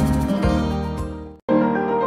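Background music with a steady beat that fades and cuts out about a second and a half in, then a different tune with held notes starts.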